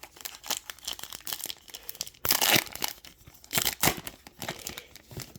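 Plastic foil trading-card pack wrapper crinkling and being torn open, a run of crackles with two louder tearing stretches about two and a half and three and a half seconds in.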